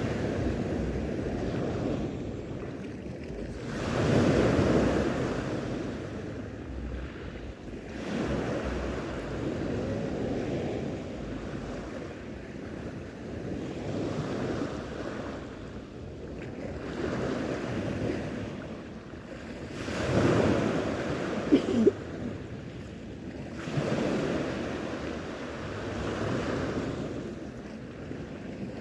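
Sea waves washing onto the shore, the noise swelling and falling back every few seconds, with wind buffeting the microphone. A brief sharp sound stands out about two-thirds of the way through.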